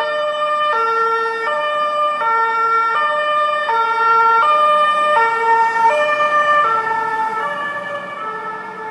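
Emergency vehicle's two-tone siren sounding loudly, alternating a high and a low note about every three quarters of a second. The pitch of both notes drops slightly in the last couple of seconds.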